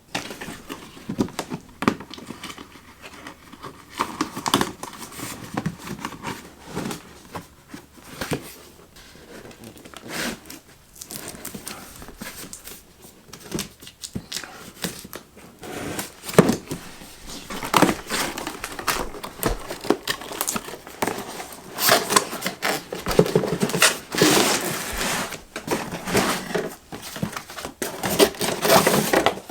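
A cardboard box being opened and unpacked by hand: tearing, crinkling packaging and cardboard pieces rustling and knocking in irregular bursts, busier and louder in the second half.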